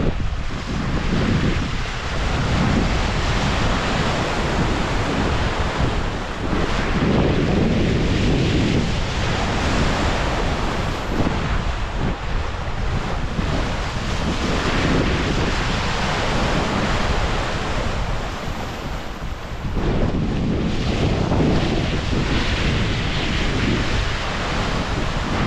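Wind buffeting the microphone over the rushing wash of sea water at the bow of a square-rigged brigantine under sail, the noise swelling and easing every few seconds.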